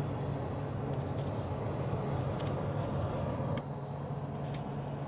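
Steady low hum of the space station's cabin ventilation, with the soft rustle of hands rubbing shampoo through hair.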